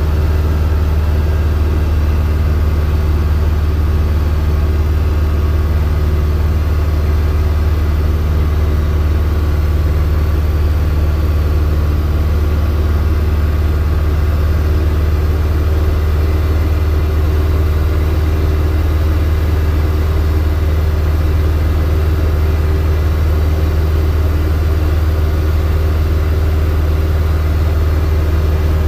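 Robin DR400 light aircraft's piston engine and propeller droning steadily in flight, heard from inside the cockpit.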